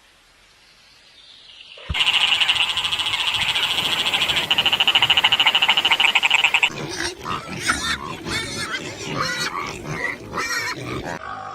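Animal calls: about two seconds in, a loud rapid pulsing trill starts, then breaks into irregular croaking chatter.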